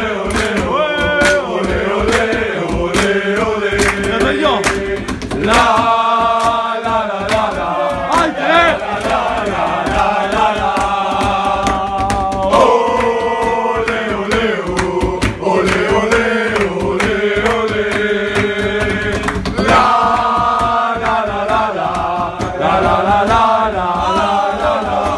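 Chanting voices singing long, drawn-out notes over percussion.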